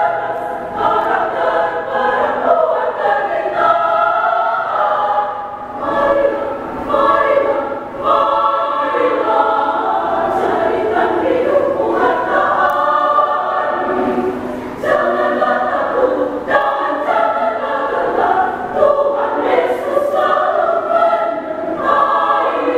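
Women's choir singing a march in several parts, in continuous phrases with brief breaths between them.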